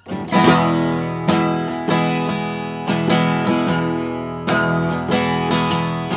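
Gibson acoustic guitar strummed on its own, full chords ringing on with a strong accented strum about once a second and no singing.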